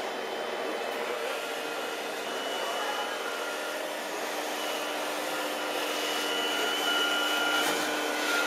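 Small electric motors of a radio-controlled model Liebherr L576 wheel loader whining steadily as it drives and works its bucket. The pitch steps up now and then and the whine grows a little louder near the end.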